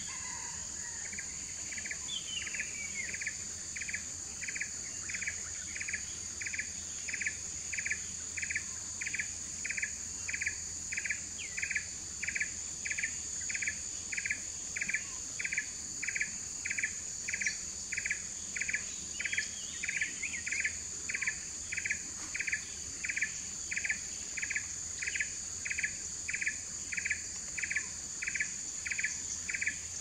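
Steady high-pitched insect drone with an evenly repeated short chirp, about three every two seconds. A few brief bird calls come near the start, around twenty seconds in, and at the end.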